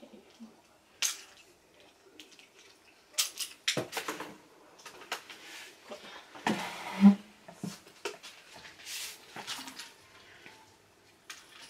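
Scattered clicks, knocks and rustling as toys and packaging are handled on a table, with one short, sharper sound about seven seconds in.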